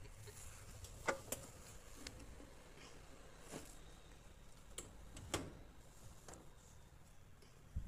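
A few scattered light clicks and knocks as laundry is handled at a top-loading washing machine, with a duller thump near the end.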